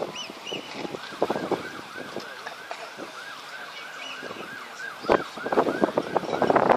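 A siren yelping, its pitch rising and falling quickly about three times a second. Short bumps come over it, the loudest about five seconds in and again near the end.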